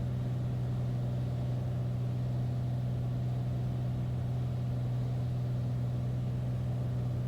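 Beechcraft A36 Bonanza's six-cylinder piston engine and propeller, a steady unchanging drone on the approach to landing.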